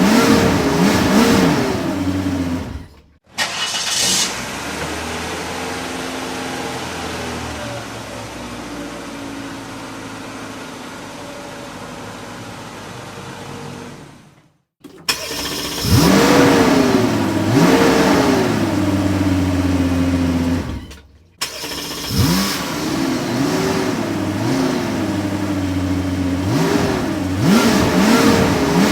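Car engines revving in a series of separate clips: repeated rev blips that rise and fall in pitch, then a steadier stretch of engine running at low revs for about ten seconds, then more repeated revving, with abrupt cuts between the clips.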